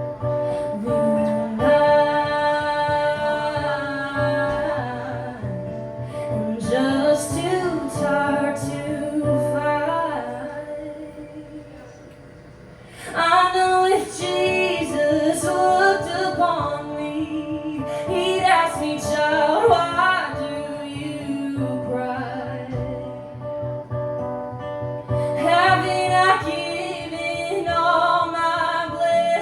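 A woman singing a slow country song live to acoustic guitar. About ten seconds in the music drops away to a quiet stretch, then the voice comes back in strongly a few seconds later.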